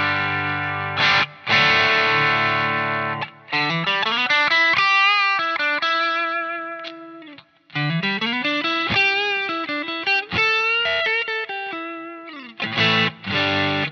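Electric guitar played through overdrive pedals into a Naughty Li'l Bitch amp set on its low 'plexi' input at the edge of breakup. Distorted strummed chords come first, then two single-note lead phrases with slides up, and chords again near the end.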